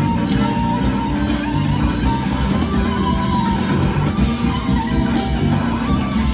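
Live rock band playing loud, with an electric guitar playing lead lines over bass and drums.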